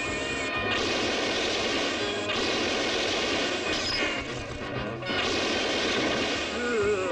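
Car engine revving hard and tyres screeching as a rear wheel spins on wet road. The noise changes abruptly a few times.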